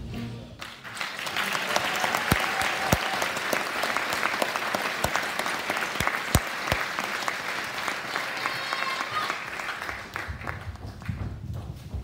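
Theatre audience applauding, the clapping swelling up just under a second in as the music stops and dying down about ten seconds in.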